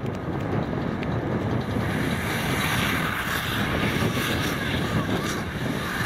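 John Deere tractors pulling McHale round baler/wrappers, their engines and baling machinery running as a steady, even din; the higher hiss in it grows louder about two seconds in.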